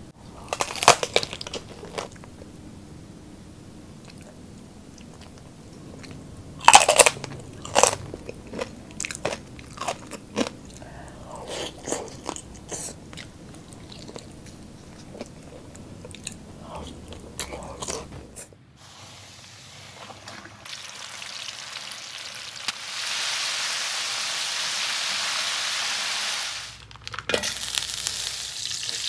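Crunching bites and chewing of a crispy fried chicken wing, in sharp irregular crackles. About two-thirds through it gives way to the steady sizzle of chicken wings deep-frying in a pot of oil, which grows louder after a few seconds.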